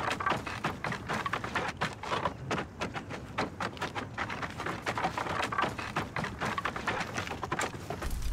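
Dense, irregular rustling and crunching of someone moving through litter and debris on the ground. Just before the end a low rumble comes in.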